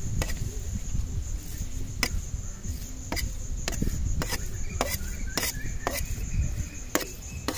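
Steady high chirping of crickets, with several sharp clicks at uneven intervals from a steel knife knocking and scraping against the rim and surface of an aluminium pan of halwa as it is smoothed.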